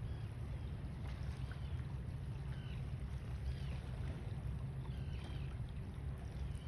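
Steady low rumble, like wind on the microphone or a distant motor, with small birds chirping briefly about once a second.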